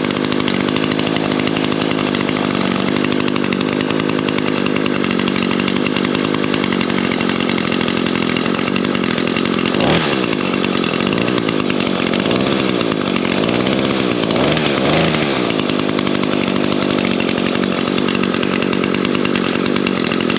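Echo gas string trimmer's two-stroke engine running at high speed, its pitch dipping and rising a few times around the middle.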